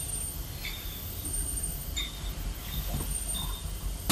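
Automatic laminating machine running with its hot knife unit in operation, sheets feeding through: a steady low hum with short high-pitched tones recurring about every second and a few faint clicks.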